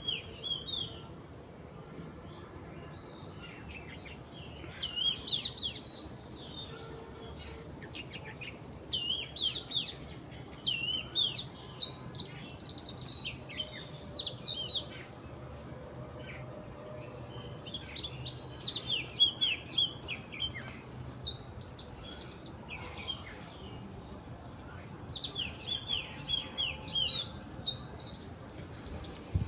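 Songbirds singing: chirping, warbling phrases in bursts a few seconds long, returning every few seconds.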